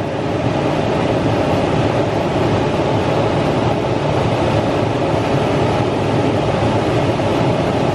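Toyota 4Runner engine idling steadily, heard from under the truck. The running engine's transmission pump drives old automatic transmission fluid out of a disconnected cooler line in a steady stream into a drain pan.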